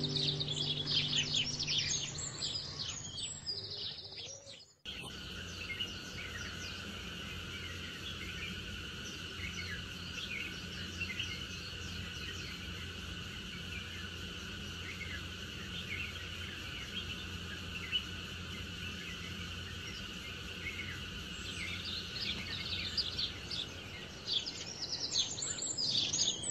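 Nature ambience of birds chirping over a steady drone of insects. Music with bird calls fades out over the first few seconds, and music comes back in near the end.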